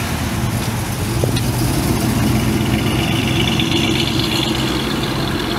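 Engine and exhaust of a 1930s Ford sedan hot rod running steadily as the car drives past and pulls away.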